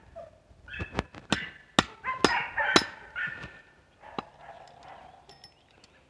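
Small hammer striking a steel chain link held in pliers on a wooden log, hammering the link closed. About six sharp metallic strikes come close together with a short ring after some of them, then one more strike about four seconds in.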